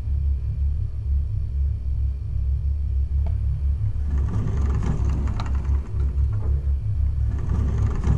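A deep, steady rumbling drone, with faint clicks and a soft hiss rising over it from about four seconds in.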